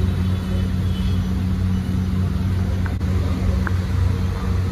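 Steady low hum and rumble of the stall's cooking burner under a large tawa of egg rice, with two faint light clicks a little past the middle.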